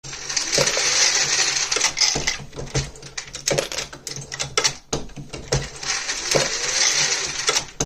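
Dillon RL1100 progressive reloading press being cycled to load 9mm Luger cartridges: a quick, uneven run of metallic clicks and clacks from the press mechanism over a steady faint hum.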